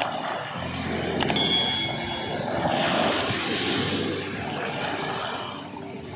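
Small waves washing and breaking on a coral-pebble shore, swelling about three seconds in, with a faint low hum underneath. About a second in come a mouse click and a short bright bell chime, a subscribe-button sound effect.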